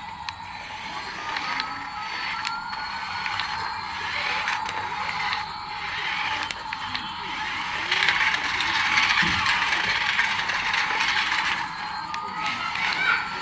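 Small electric motor and plastic gears of a remote-control toy whirring, with scattered clicks and a pitch that glides up and down as it changes speed. It is loudest a little past the middle.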